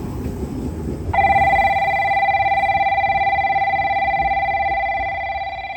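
Station platform train-approach warning: an electronic bell ringing steadily with a fast ripple, starting about a second in, over a low rumble of background noise.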